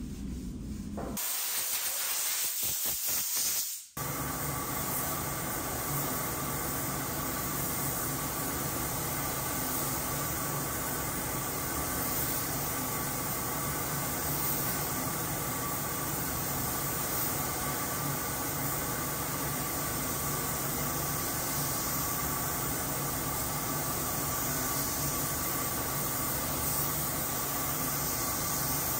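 Steady hiss of compressed air and primer atomising from a gravity-feed paint spray gun, coating a bare steel bumper. It starts about four seconds in and runs evenly from then on.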